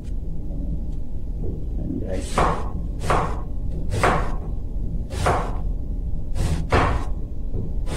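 Kitchen knife slicing through an onion onto a cutting board: about six separate cuts, irregularly spaced, starting about two seconds in, over a steady low hum.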